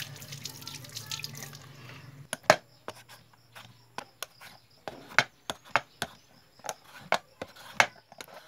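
Vegetable peeler scraping strips of skin off a bottle gourd: short, sharp scrapes about every half second, starting about two seconds in.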